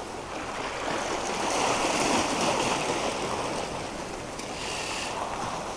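Sea waves washing over shore rocks: a surge that swells to a peak about two seconds in and eases off, with a smaller wash near the end.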